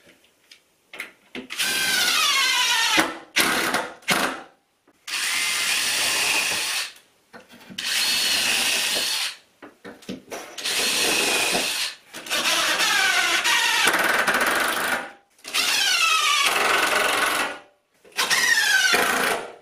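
Cordless drill drilling small pilot holes into a wooden board, started and stopped in about eight runs of one to three seconds each with a few short blips between; in several runs the motor whine drops in pitch as it starts.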